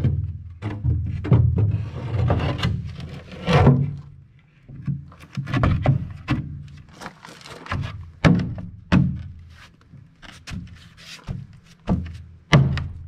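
A cut AdvanTech OSB subfloor panel knocking and thumping against the bus's steel stairwell frame as it is worked into place by hand: a long run of irregular knocks.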